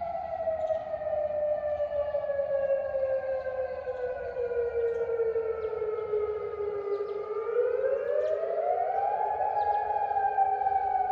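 Civil defence sirens wailing to announce a curfew. One tone falls slowly in pitch, then about seven seconds in a second tone rises and holds higher while the first stays low.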